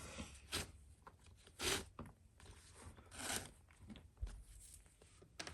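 Leather glove lace being pulled through the lace holes of a baseball glove: a few short, faint scraping swishes, the loudest about one and a half and three seconds in.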